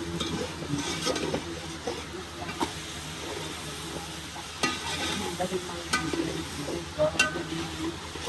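Meat being stirred into a pot of sizzling masala: a steady frying sizzle, with a metal spoon scraping and clicking against the pot now and then.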